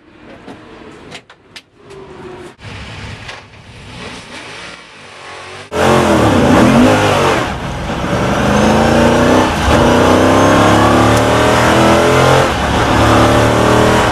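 Superlite Eagle Coupe race car engine, running quietly with a few clicks at first. About six seconds in, much louder in-car engine sound takes over as the car accelerates hard, the pitch climbing and dropping back at each of several upshifts.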